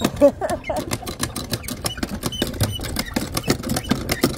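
Hand water pumps being worked up and down, their handles and mechanisms clicking and clanking in a fast, irregular clatter.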